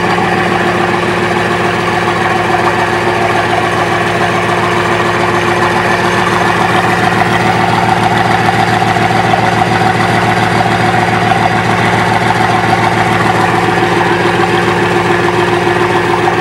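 Bugatti Vision GT's quad-turbo W16 engine idling steadily through its four exhaust tips, a loud, even burble with no revving.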